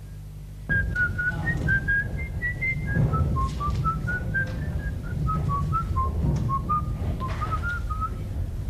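Someone whistling a slow, wandering tune, one clear note at a time, starting under a second in, over a low hum.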